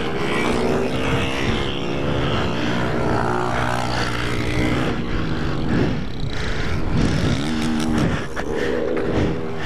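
Motorcycle engine revving as the rider holds a wheelie, its pitch falling and climbing several times in the second half, with wind rumbling on the microphone.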